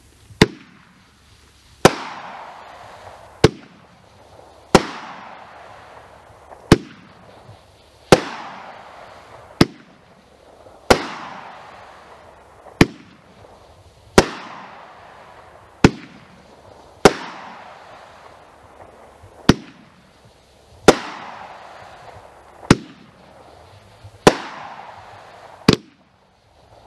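Boomer 'Burn Out' 10-shot firework cake firing shot after shot: about nineteen sharp reports roughly a second and a half apart, the launches and aerial bursts of its shots, each trailing off in a fading hiss.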